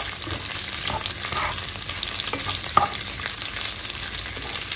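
Small pork cubes sizzling in vegetable oil in a stone-coated non-stick frying pan, stirred with a spatula that scrapes and taps the pan a few times.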